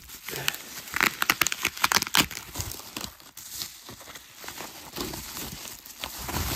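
Packaging crinkling and rustling in irregular sharp crackles as items are pulled out of a box one at a time, busiest about one to two seconds in.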